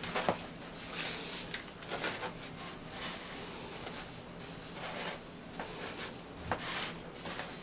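Scattered soft rustles and light knocks of hands handling a long loaf on a wooden cutting board, a few seconds apart.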